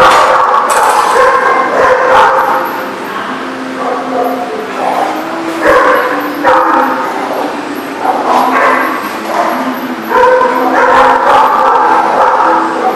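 Dogs barking and yipping in quick, overlapping runs, loudest near the start, around six seconds in, and through the last few seconds.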